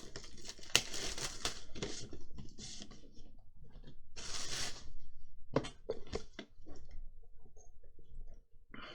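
Plastic wrapping being torn and crinkled off a sealed Pokémon Elite Trainer Box, with a few sharp clicks and taps about two-thirds of the way through.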